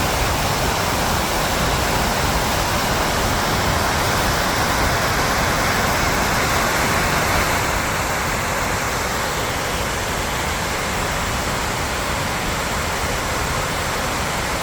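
Fosslaug waterfall rushing: a steady, dense noise of falling water that eases slightly about halfway through.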